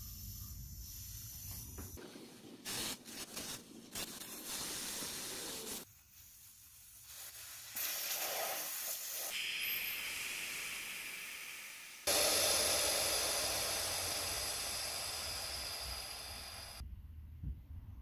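Air hissing out of a Yamaha V Star 950's rear tire through the valve stem as the valve core is unscrewed. It comes in uneven spurts at first, then a loud rush about twelve seconds in slowly tapers off as the tire empties.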